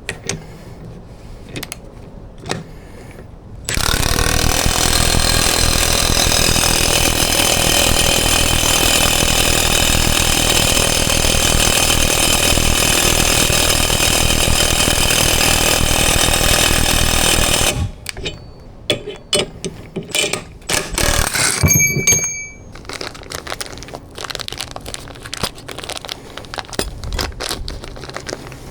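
A power tool runs steadily and loudly for about fourteen seconds, then stops abruptly. Before and after it come scattered clicks and knocks of tools and metal parts being handled, with one brief ringing note.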